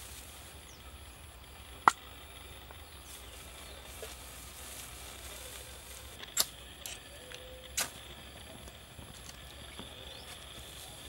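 A few sharp, short clicks from a hand-held fire starter struck at a bundle of dry grass tinder to light it. The loudest comes about two seconds in, and a couple more come about six and eight seconds in.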